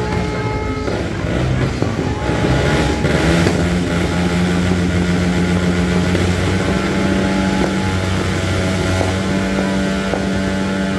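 Motorbike engines running in street traffic, a steady loud drone.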